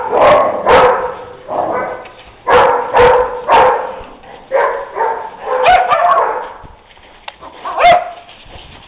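Dogs barking repeatedly while playing, short sharp barks in clusters of two or three with brief pauses between, ending in a single bark about eight seconds in.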